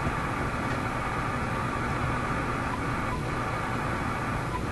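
Steady hiss of radio static from an RCA A25 vacuum-tube shortwave receiver during band alignment, with a faint steady tone running through the hiss.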